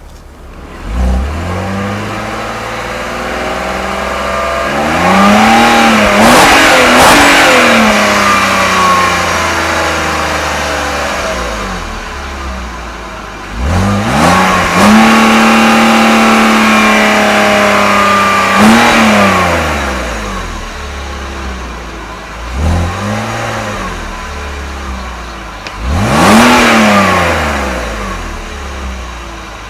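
A 2005 BMW 325ci's 2.5-litre inline-six is revved several times from idle, heard at the exhaust. There is a slow climb and fall, then a quick rise held high for a few seconds, a short blip and a last sharp rev, each time settling back toward idle.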